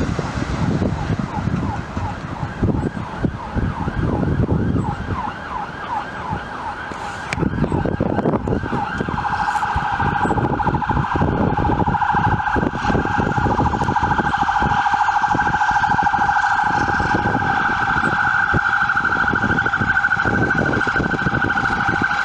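Fire engine siren: a repeating yelp of quick rising sweeps, switching about eight seconds in to a faster, louder warble. Under it is the rumble of vehicle engines and road noise.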